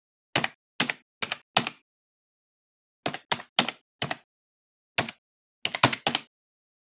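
Typing on a keyboard: about a dozen single keystrokes in three quick groups of about four, with pauses between the groups.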